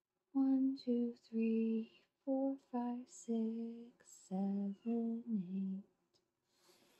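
A woman's voice chanting a slow, sing-song count, in a string of drawn-out notes that fall into three short groups.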